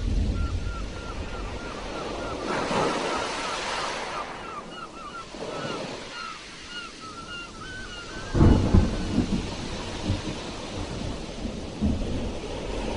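Sea waves washing and breaking on a shore, with heavy crashes at the start and about eight seconds in. Through the first eight seconds a run of short chirps repeats about three times a second.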